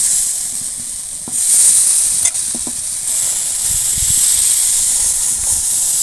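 Thin rice-and-palm-fruit batter sizzling on a hot, lightly oiled iron tawa over a wood fire, a steady hiss that swells about a second in.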